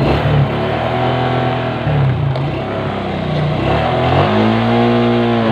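Suzuki scooter engine catching and running just after being started on its starter. It idles, then is revved up about four seconds in, dropping back near the end.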